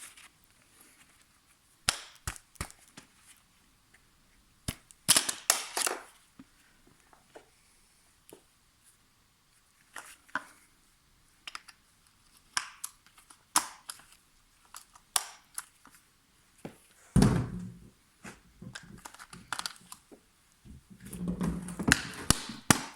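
Scattered sharp clicks and knocks of hard plastic and metal parts as a pram wheel is worked on and fitted with a new hub bushing. A heavier thump comes about two-thirds of the way through, and a quick run of knocks comes near the end.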